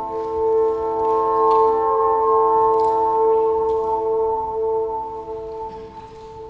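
Soundtrack music: a sustained ringing drone of several steady tones, like a struck singing bowl, swelling slowly. It grows louder about a second in and eases off near the end.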